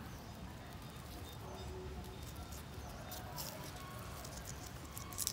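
Puppies suckling from their mother: faint small squeaks and whimpers with a few short wet clicks from nursing.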